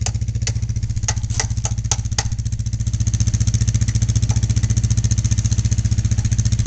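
ATV engine idling steadily with an even pulse, with a few light clicks or knocks in the first couple of seconds.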